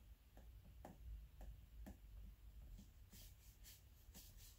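Faint dabs and strokes of a watercolour brush on sketchbook paper, at first as soft taps about twice a second, then a few sharper scratchy strokes near the end, over a low room hum.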